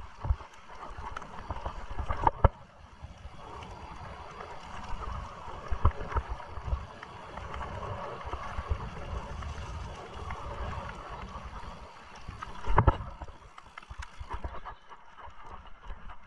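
Mountain bike riding over a rough trail: tyre noise with uneven rattling and knocking from the bike, and sharp knocks over bumps about two and a half seconds in and again near thirteen seconds.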